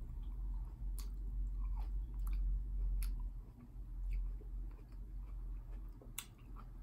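A person chewing a large red grape close to the microphone, with a few sharp, wet clicks a second or more apart.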